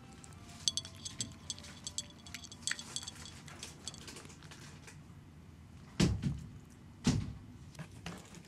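A cat eating from a ceramic dish: a quick run of small clicks and licks, then quieter. Two heavy thumps come about six and seven seconds in.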